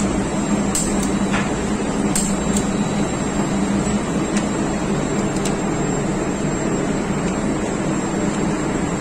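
Steady drone of running engine-room machinery, with a few light metallic clicks in the first few seconds as a torque wrench is worked on a diesel fuel-injection pump.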